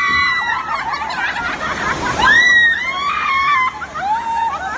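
Riders on a log-flume water ride screaming in loud, high, wavering cries, one trailing off just after the start and another about two seconds in, over the rush of water.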